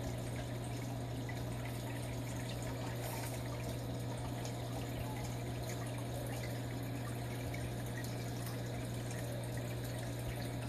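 Aquarium running: a steady trickle and splash of circulating water over a steady low hum.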